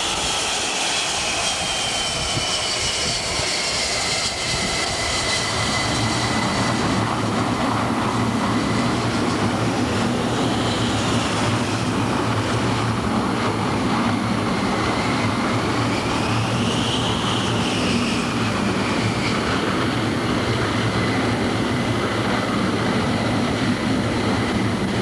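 Jet aircraft engines running on a carrier flight deck: a loud, steady rush with a high turbine whine that drops in pitch over the first few seconds and then holds, swelling up briefly twice. A deeper hum joins about six seconds in.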